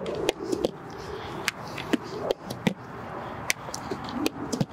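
A string of short, sharp knocks and pops: baseballs being caught in a flat leather fielding pad during a ground-ball drill.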